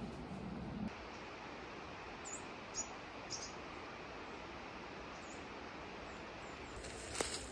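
A few short, high chirps of a small bird, each dipping in pitch, over a steady outdoor hiss; a few sharp scuffs come near the end.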